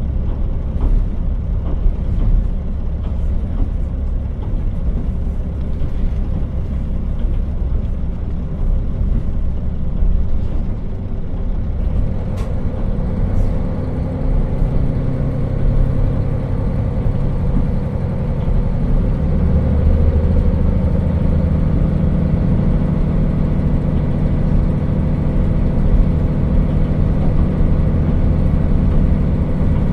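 JR KiHa 40 diesel railcar running on the line: a steady low rumble of wheels and running gear, with one sharp click a little before halfway. From about halfway a steady diesel engine drone comes up under the rumble.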